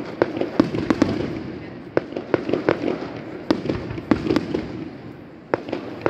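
Aerial firework shells bursting in a rapid, irregular string of sharp bangs over a continuous rumble. The bangs ease off briefly about four and a half seconds in, then start again near the end.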